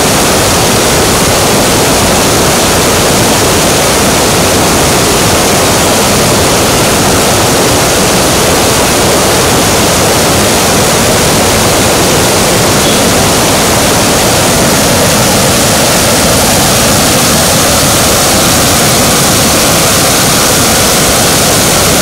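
Loud, steady rush of a fast, muddy stream pouring over rocks in rapids and small falls.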